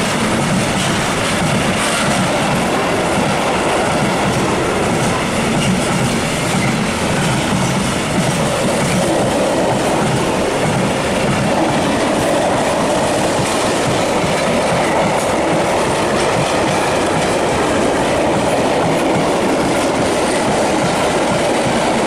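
Freight train of loaded container flat wagons rolling past, a steady, loud rumble of steel wheels on the rails that runs on without a break.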